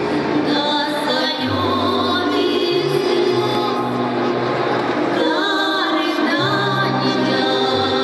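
Russian folk song ensemble singing in chorus, mostly women's voices, with long held notes over a low sustained line.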